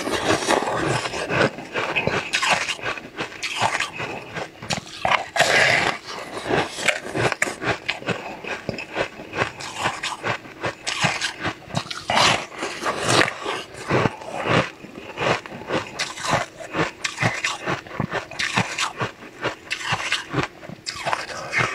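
Crunching and chewing of frozen blue ice: a dense, irregular run of sharp cracks and crackles as pieces are bitten and broken.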